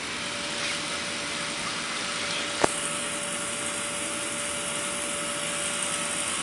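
Steady hum of an electric blower fan keeping an inflatable water slide inflated, with one sharp click about two and a half seconds in.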